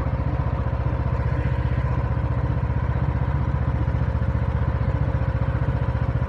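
Riding lawnmower's engine running steadily with a fast, even low pulse as the mower drives slowly, its blade disengaged.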